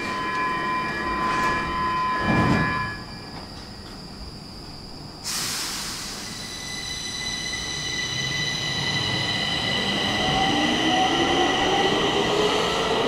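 Stockholm metro train pulling out of the station, the whine of its electric traction motors climbing steadily in pitch over its rumble as it accelerates. Before that, a steady hum with a low rumble ends about three seconds in, and a sudden hissing rush sets in about five seconds in.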